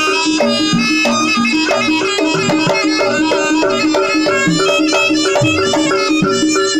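East Javanese jaranan music: a shrill reed wind instrument holds a melody over gamelan-style accompaniment, with short notes repeated in a steady rhythm and drum strokes.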